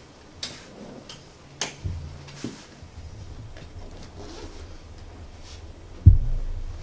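A few sharp clicks and knocks from a laptop being worked to start a video, with a low hum setting in about two seconds in. Near the end comes one loud, deep thump, followed by low rumbling.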